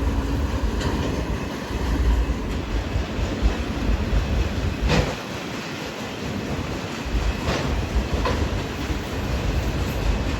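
Long freight train of autorack cars rolling past: a steady rumble of steel wheels on the rails, with a few sharp clanks from the cars.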